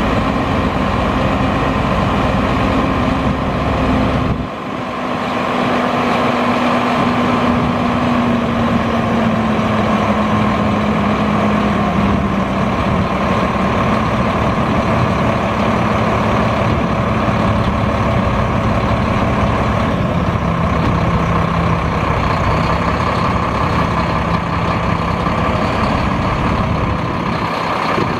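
Mack MP7 10.8-litre six-cylinder turbo diesel of a dump truck running steadily, with a low hum that slowly drops in pitch during the first half.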